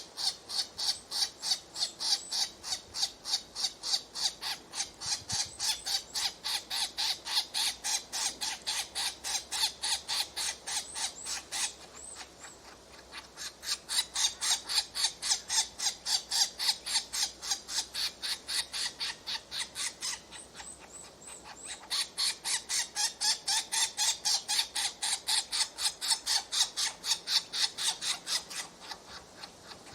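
Woodpecker nestlings giving begging calls: a fast, steady run of short, high-pitched squawks, about three a second, with two brief lulls.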